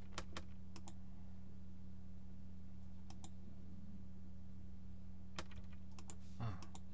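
Scattered clicks of a computer mouse and keyboard, several in quick pairs and a small cluster near the end, over a steady low electrical hum.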